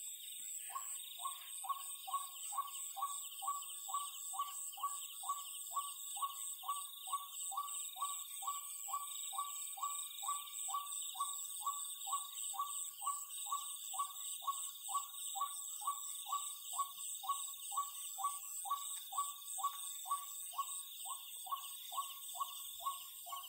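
A night animal giving a long, even series of short calls, about two a second, over a steady chirring of night insects.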